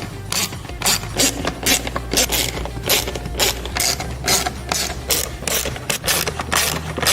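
Socket ratchet clicking repeatedly, about two to three clicks a second, as a 5.5mm socket backs out the small screws holding a dash storage bin.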